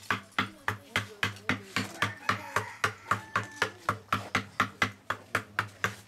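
Wooden mallet striking a chisel to carve a pattern into a djembe's wooden shell: an even run of sharp knocks, about four a second.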